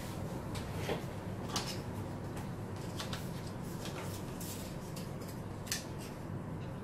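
Scattered light clicks and taps from small tools and eyelash-extension supplies being handled, over a steady low hum.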